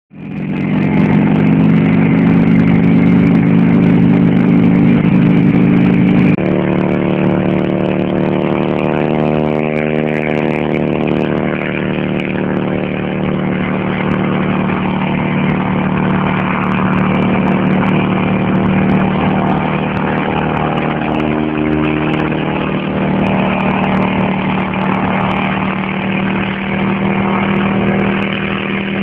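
Engine of a homemade single-seat helicopter running steadily as it lifts off and hovers just above the ground. The sound drops slightly and shifts in pitch abruptly about six seconds in, then wavers up and down several times.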